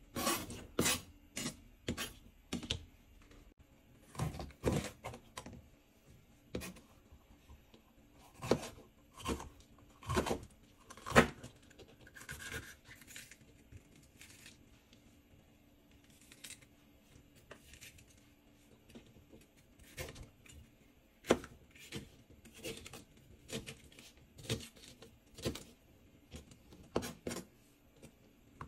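Small objects being handled: a string of irregular clicks, taps and light knocks, loudest about eleven seconds in, thinning out in the middle, over a faint steady hum.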